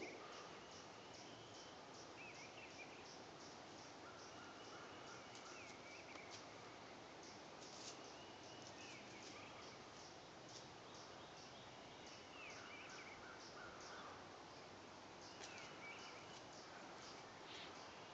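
Near-silent woodland ambience: faint distant bird calls recurring every few seconds, with scattered light ticks and rustles.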